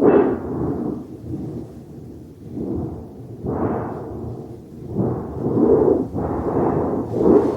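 Rolling thunder: a sudden loud peal at the start, followed by a series of deep rumbles that swell and fade one after another.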